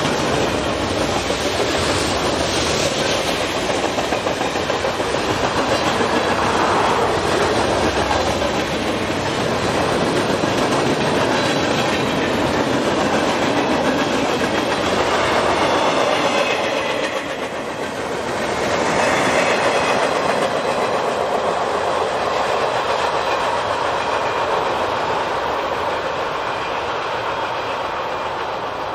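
Freight train cars rolling past, their wheels clacking steadily over the rail joints, with a brief lull about two-thirds of the way through.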